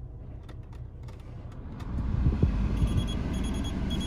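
Car cabin with the engine running and a steady low rumble, plus a few faint clicks of the climate-control dial being turned. About two seconds in, a louder low rumble starts, and faint rapid high beeps come near the end.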